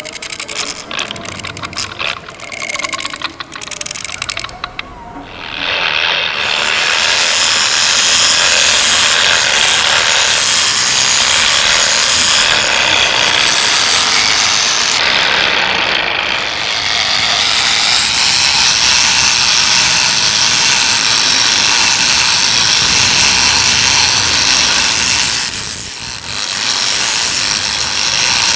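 Improvised experimental noise music: scattered scratching and tapping sounds, then a loud, sustained, harsh scratchy texture about five seconds in that keeps going, dipping briefly near the end.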